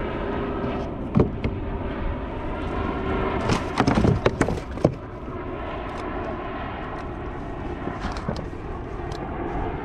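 Steady wind rumble on the microphone over open water, with a single knock about a second in and a burst of splashing and knocks from about three and a half to five seconds as a summer flounder is scooped thrashing into a landing net alongside a kayak.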